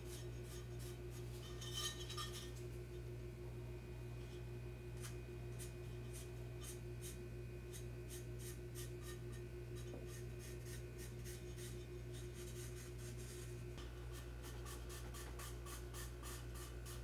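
A permanent marker scratching across the face of a ceramic floor tile in many short strokes as a circular cut line is drawn on it. A steady low hum runs underneath.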